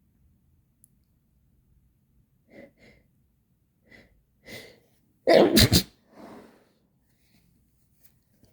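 A person's sneeze: four short "ah" catches of breath as it builds, then one loud sneeze about five seconds in, muffled into toilet paper and pushed low with the throat held open to sound less girly, followed by a softer breath out.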